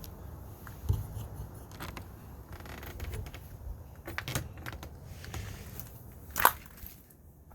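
Handling noise: scattered clicks, rattles and knocks, with a low thump about a second in and a sharp click about six and a half seconds in.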